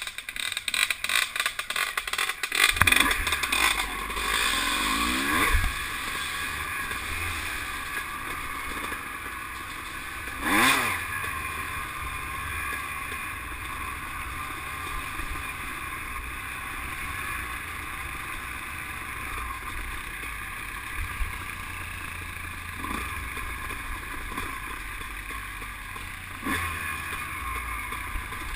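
Off-road engines running while riding a rough dirt trail, with steady wind rush over the microphone. Clattering over bumps fills the first few seconds, and a brief loud surge comes about ten seconds in.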